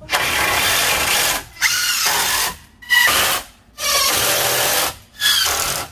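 Cordless power driver running in five bursts of about a second each, driving screws to fasten a pine board to wooden rafters.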